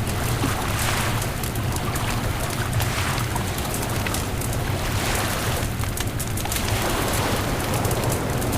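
Beach bonfire crackling and popping, many small snaps in quick succession, over a steady low rumble.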